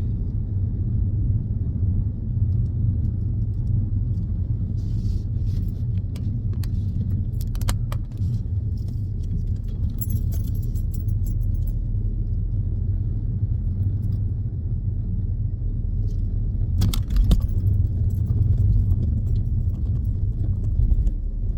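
Car cabin road noise while driving: a steady low rumble with a few short clicks and rattles, and no warning beep.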